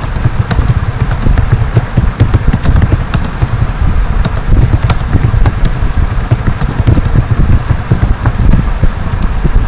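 Computer keyboard keys clicking in quick, irregular strokes as text is typed, over a loud, steady low rumble.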